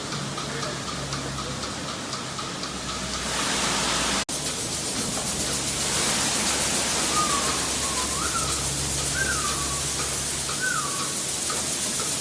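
Rotary milking parlour machinery running: a steady hiss over a low hum. About four seconds in the sound cuts out for an instant and comes back louder, and a few short rising-and-falling chirps sound near the end.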